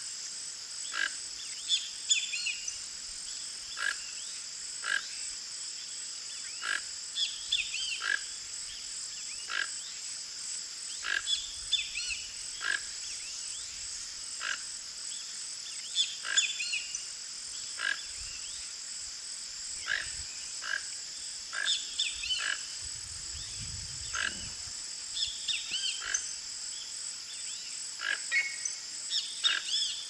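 Toco toucan giving short calls, roughly one a second and irregularly spaced, over a steady high-pitched hiss. A brief low rumble comes a little past the middle.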